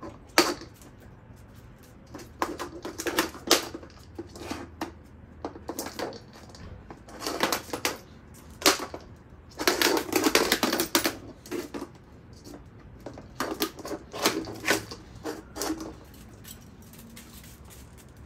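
Hard plastic ball clattering and rattling over concrete pavers as a corgi pushes it along, in irregular bursts of clicks with short pauses between, the longest run about ten seconds in.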